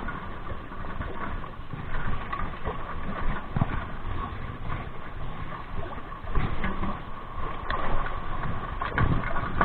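Wind rumbling on the microphone, with rustling and a few light knocks from a fishing rod, reel and dry bag being handled.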